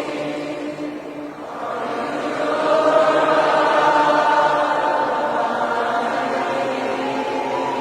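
A choir of many voices singing long sustained chords, swelling louder a couple of seconds in.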